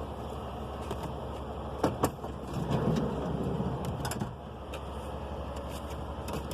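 Handling noises inside a car: two sharp clicks about two seconds in, then a rumbling shuffle of about a second and a half with a few more clicks, over a steady low hum.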